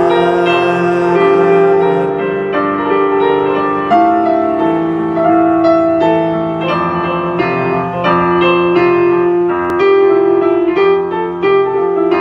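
Digital piano playing an instrumental passage: a steady stream of melody notes over held chords.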